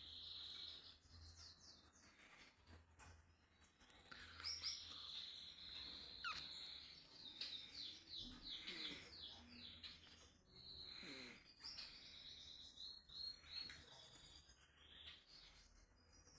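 Faint chirping and twittering of a small bird, with runs of quick repeated chirps and a few higher whistled notes.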